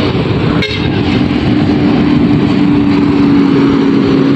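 Moving vehicle: steady engine and road noise with a low drone that sinks slightly in pitch, and one brief click under a second in.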